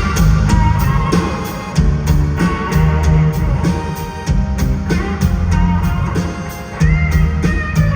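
Rock band playing an instrumental passage live: electric guitar over heavy bass and a drum kit keeping an even beat.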